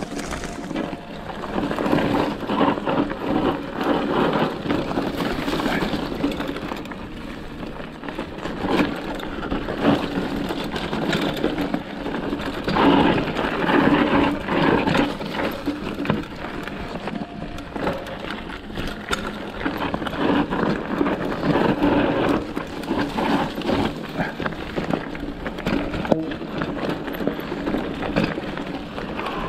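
Mountain bike riding down a rough, rocky dirt trail: tyres crunching over loose gravel and rocks, with the bike rattling and clattering over the bumps.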